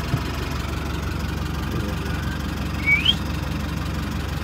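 Vehicle engine idling with a steady low hum. A short, high rising chirp sounds about three seconds in.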